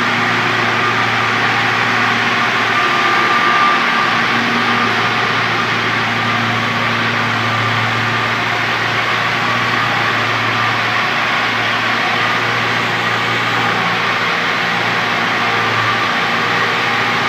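A machine running steadily, with a constant low hum under a steady hiss and a few fixed tones.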